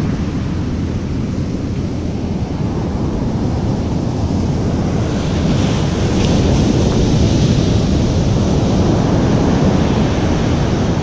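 Big ocean surf breaking on the beach in a steady loud wash, with wind buffeting the microphone; it grows slightly louder about halfway through.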